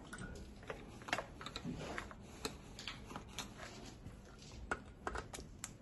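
Scattered light clicks and taps of a compression gauge hose and its brass fitting being handled on a diesel engine's cylinder head, as the gauge is moved from one cylinder to the next.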